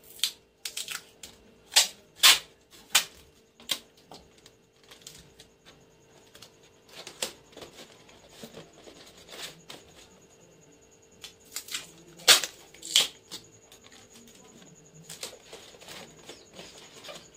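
Clear sticky tape being pulled from the roll and pressed around a rolled paper-and-card tube: irregular crackling rips and paper rustles, loudest about two seconds in and again past the middle, over a faint steady hum.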